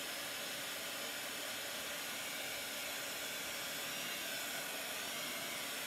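Small handheld craft heat gun running steadily, its fan blowing an even hiss of hot air to dry a coat of paint.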